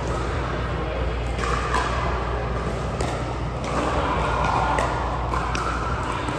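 A handful of sharp, short clicks and knocks, some with a brief ring, spread irregularly over a steady low hum and room noise.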